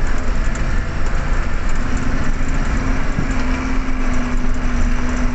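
Steady engine and road noise of a moving vehicle, with a steady hum setting in about two seconds in.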